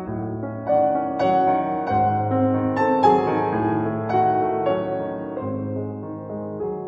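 Background piano music, a slow melody of ringing notes over low bass notes.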